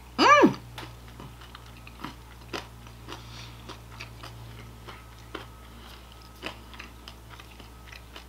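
A person chewing a mouthful of salad close to the microphone, with scattered small crunches and clicks. A short hummed "mmm" of enjoyment comes right at the start.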